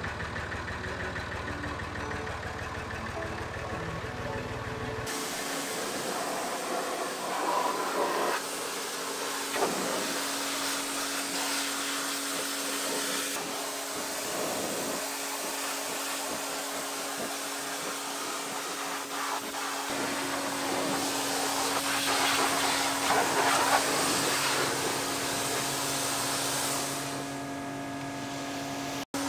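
Music for about the first five seconds, then a Kärcher HDS 6/12 hot pressure washer running in hot mode: a steady hiss from the jet over a steady hum from the machine, the spray growing louder in patches.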